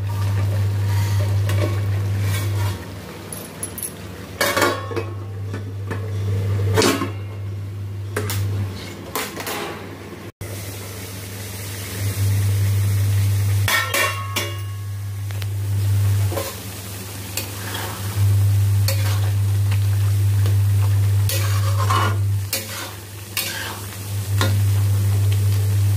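A metal spatula stirring tomato masala in an aluminium kadhai, scraping and clinking against the pan while the masala sizzles. A low steady hum starts and stops several times.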